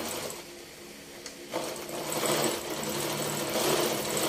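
Janome N3000 sewing machine starting to stitch about a second and a half in, then running steadily, sewing through folded layers of thick fabric.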